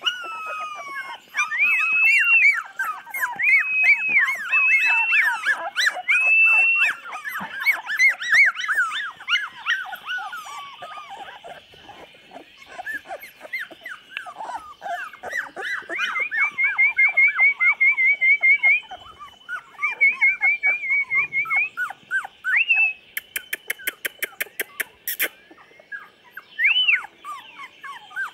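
Young chocolate Labrador retriever puppies, 24 days old, whining and squealing, many high-pitched cries overlapping. In the second half come runs of short, quick chirping cries, and a rapid run of clicks follows about two-thirds of the way in.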